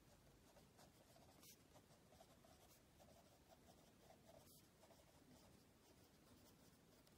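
Faint scratching of a pen writing on lined notebook paper.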